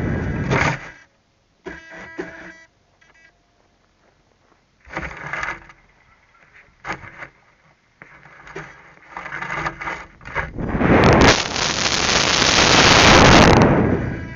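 Wind noise from airflow over the onboard camera's microphone on a homemade F3K discus-launch glider in flight: a rush that cuts out about a second in, returns in short gusts, then swells into a long loud rush for about three seconds near the end as the glider dives.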